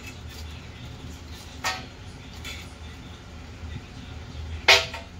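Kitchen handling noises: two sharp clacks about three seconds apart, the second one louder, over a low steady hum.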